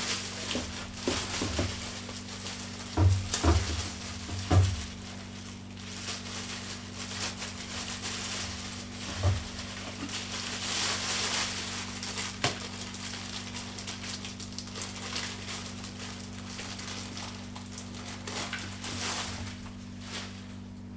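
Crinkling of plastic wrapping being pulled off and handled around a boxed duck decoy, with a few dull handling bumps in the first five seconds.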